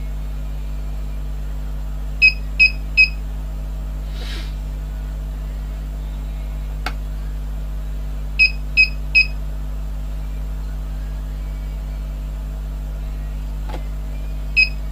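Digital panel power meter's buzzer giving short high beeps in groups of three, about every six seconds, as its setting button is pressed while the shunt range is being set. A faint click comes between the groups, over a steady low hum.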